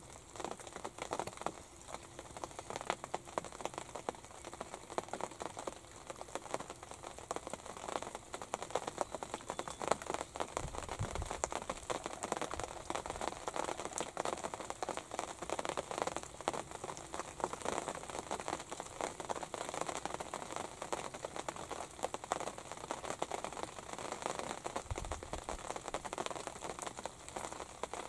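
Light rain pattering steadily on the fabric roof of a hunting ground blind, a dense run of fine crackling ticks. Two dull low thumps come about eleven seconds in and again near the end.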